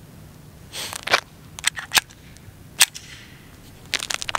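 Handling noise from a 10mm Glock 20 pistol being loaded and worked: a string of sharp metallic clicks and clacks, with a short scrape about a second in.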